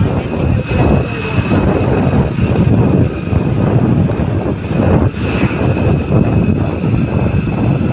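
Wind buffeting the phone's microphone on a moving motorbike, over the engine and road noise, with a faint steady high whine throughout.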